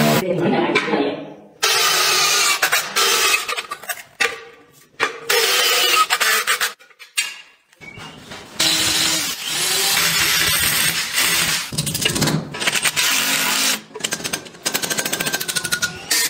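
Electric drilling in several loud bursts broken by short pauses: a hammer drill bores through stone stair tiles for the railing-post brackets, and a cordless drill drives screws near the end.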